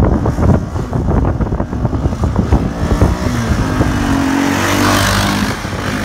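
Kawasaki Bayou KLF400 ATV's single-cylinder four-stroke engine running under throttle, its note rising and swelling from about halfway through and easing off near the end. Wind buffets the microphone at the start.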